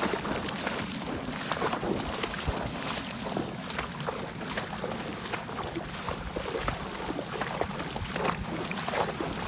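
Horses wading through shallow floodwater, their hooves splashing in a steady, uneven stream of sloshes.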